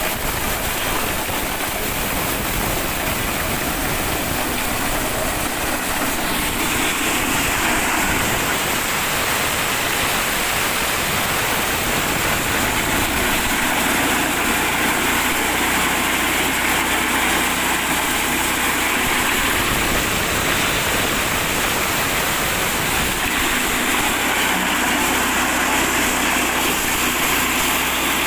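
Mini corn sheller running, driven by an 8 hp petrol engine: a steady engine drone under a dense, even rushing noise from the machine.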